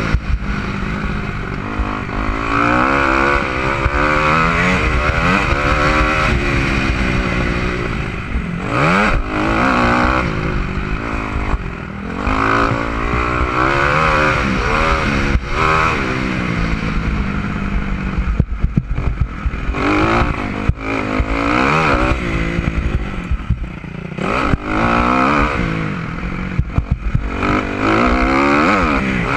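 Dirt bike engine being ridden hard, revving up and dropping back again and again as the rider works the throttle and gears, with wind rushing over the helmet-mounted camera.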